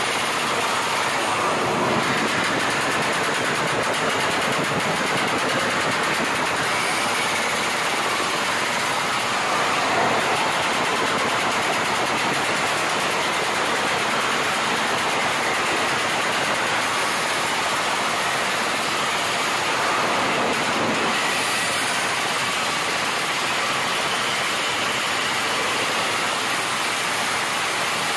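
Modified underbone motorcycle engine running continuously at high revs through an aftermarket exhaust, with small swells in revs about a third and two-thirds of the way through.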